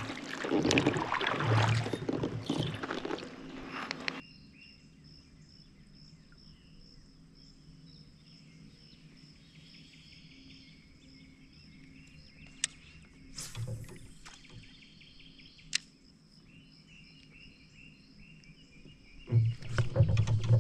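Loud kayak handling and water noise for about four seconds, then a sudden drop to quiet creek ambience. Over the quiet runs a faint, steady, high pulsing chorus of wild animals, with two sharp clicks. Loud noise comes back about a second before the end.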